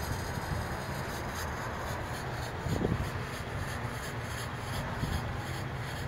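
Small electric pump running steadily with a rasping sound, pushing fog-machine smoke into the engine's intake for a vacuum-leak smoke test. A short thump about three seconds in.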